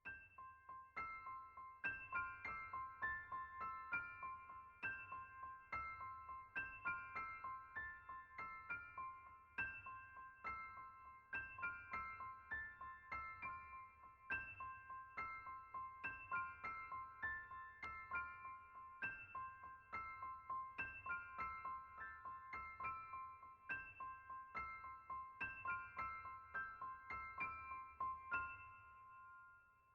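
Background music: a gentle piano or keyboard melody of quick, bright notes in a steady rhythm, fading out near the end.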